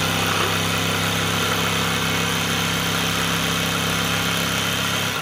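Black+Decker electric jigsaw running at a steady pitch as its blade cuts through a wooden board. It stops near the end.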